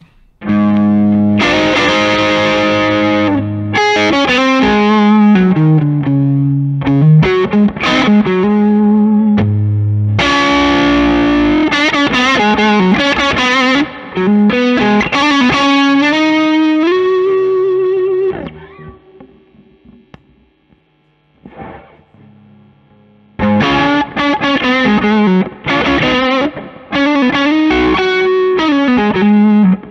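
Overdriven electric guitar: a Stratocaster played through a Ceriatone Horsebreaker, a Klon- and Bluesbreaker-style dual overdrive pedal, with its two sides stacked, playing chords and lines. The playing stops for a few seconds past the middle, then resumes with the pedal's order flipped (Centura side into the BB side), which gives more compression and a bit more sustain.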